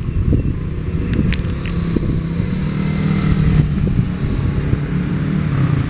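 Wind buffeting the microphone over nearby road traffic, with a vehicle engine humming steadily from about two seconds in until near the end.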